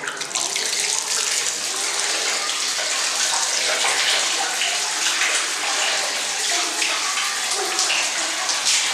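Water running from a wall tap and splashing steadily, with a baby held under the stream.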